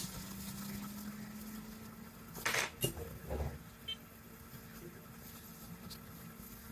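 Small tools being handled on a repair bench: a few light clicks and knocks about two and a half to three and a half seconds in, over a steady low hum.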